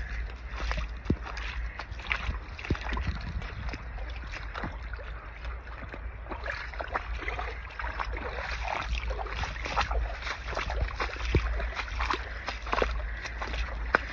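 Shallow spring-fed water trickling and splashing over gravel and stones, a continuous wash broken by many small irregular splashes, over a steady low rumble.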